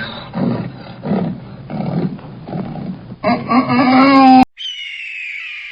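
Animal calls: a series of softer pitched calls, then a loud drawn-out call that cuts off abruptly. After the cut comes a high, falling call like a bird's squawk.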